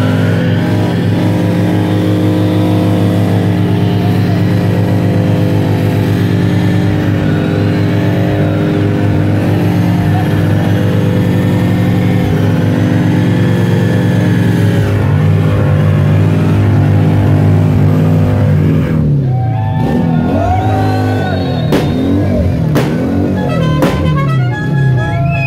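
Pickup truck engine held at high revs through a tyre-smoking burnout, mixed with loud rock music. Near the end the engine revs rise and fall repeatedly.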